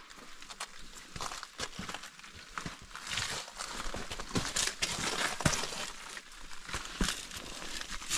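Footsteps crunching and scraping over loose rock, an irregular run of clicks and clatters that is busiest in the middle.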